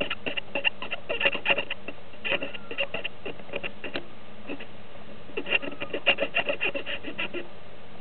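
Quick scratching and tapping on a hard surface in irregular bursts, with short pauses in between.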